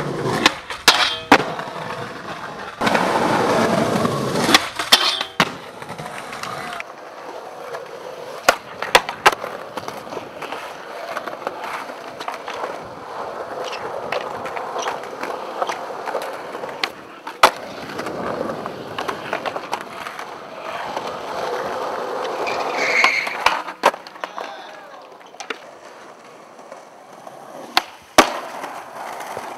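Skateboards rolling on concrete, with many sharp clacks of boards popping and landing. A louder rough scraping stretch of about two seconds comes a few seconds in.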